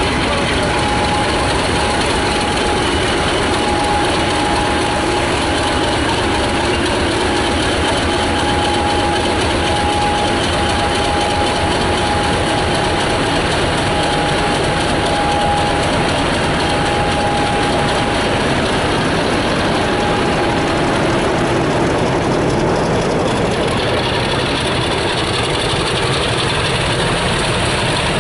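British Rail Class 50 diesel locomotive 50049 Defiance running slowly past at close range. Its English Electric 16-cylinder diesel engine gives a loud, steady sound, with a steady whine through most of it that fades near the end.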